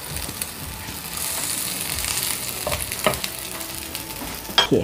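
Dahi kababs sizzling as they shallow-fry in oil on a nonstick tawa. The hiss swells from about a second in, and a few short knocks come in the second half, the sharpest near the end.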